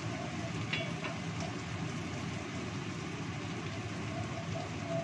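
Steady rushing of a gas stove burner under a wok of fish simmering in sauce, with a couple of faint clicks about a second in.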